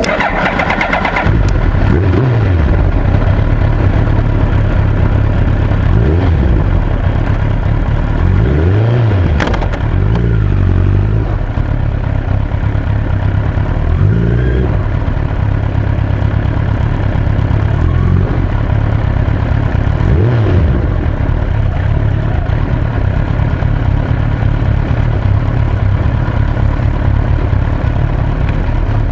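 Suzuki Hayabusa GSX-1300R inline-four motorcycle engine running under way, its revs rising and falling several times in the first twenty seconds, then holding steadier.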